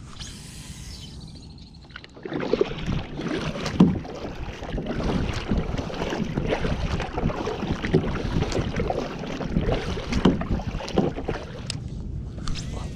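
Kayak paddle strokes: the blades dipping and splashing in the water in a quick irregular run that starts about two seconds in and eases off near the end.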